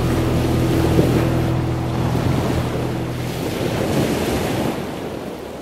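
Wind buffeting the microphone over choppy harbour water, with a low steady hum in the first part that stops a little past three seconds in.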